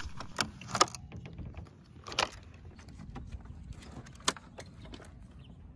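Pickup truck's hard tonneau cover being unlatched and lifted open: a handful of sharp latch clicks and knocks, the loudest about two seconds in, over a low steady rumble.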